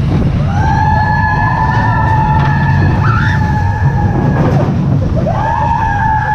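Steel mine-train roller coaster rumbling along its track, with a rider's long held high scream lasting about four seconds, then a second one starting about five seconds in that falls away at its end.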